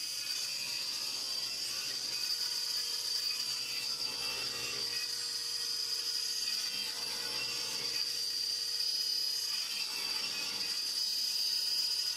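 Table saw running with a steady high whine while its blade crosscuts strips from a maple panel on a crosscut sled.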